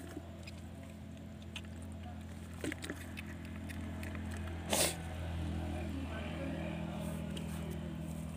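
A motor running steadily with a low hum that grows a little louder. A few brief knocks are heard, and a louder short rustling noise comes about five seconds in.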